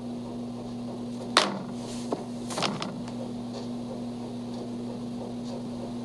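A steady low hum with a few sharp clicks, the loudest about a second and a half in.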